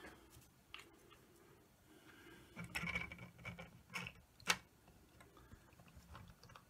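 Faint clicks and taps of 3D-printed PLA plastic parts being handled, as the hood piece is set onto the truck model's chassis, with the sharpest tap about four and a half seconds in.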